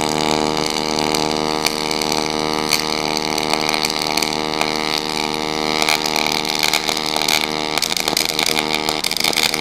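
YesWelder DP200 MIG welding arc running in pulse mode: a steady buzzing hum made of many even tones, with crackle and spatter over it. The hum fades into rougher crackling about eight seconds in.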